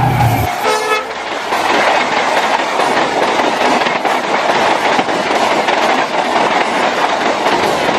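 Train coaches passing at speed, their wheels clattering steadily over the rail joints. A deep low rumble stops about half a second in, followed by a brief pitched note.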